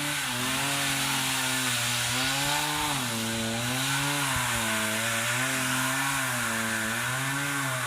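An engine running steadily, its pitch rising and falling gently every second or two.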